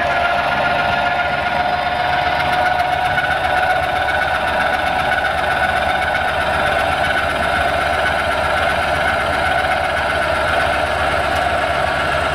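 Electric tongue jack motor running as it lowers the trailer tongue: a steady geared whine that drops slightly in pitch.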